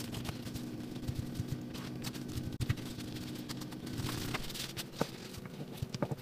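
Soft, steady background music of held chords that change a little over four seconds in. Over it, light rubbing and a few soft taps as gloved hands roll bagel dough into a rope on a mat.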